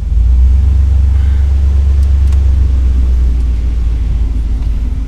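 Loud low rumble from the running 1987 Oldsmobile Cutlass Supreme, jumping up sharply at the start and easing off after about three and a half seconds.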